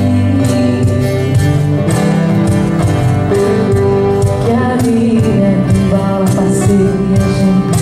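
Small acoustic band playing live: strummed acoustic guitars, bass and a steady beat of hand percussion, with a woman singing the melody.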